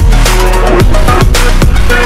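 Loud electronic background music with a steady drum beat and a deep bass line.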